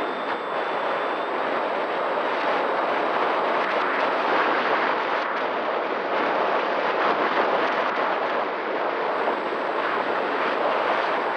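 Loud, steady rush of airflow buffeting the RunCam 2 action camera's microphone aboard a Horizon Hobby Opterra RC flying wing in flight, with a faint steady whine from its electric motor and propeller underneath.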